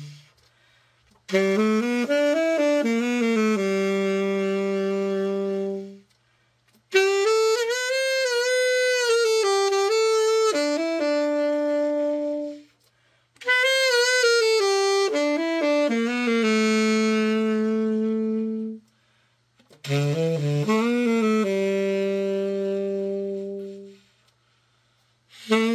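Yamaha YTS-62 tenor saxophone played in four short melodic phrases, each ending on a long held note, with brief silences between them. This is a play test of the horn after a full overhaul.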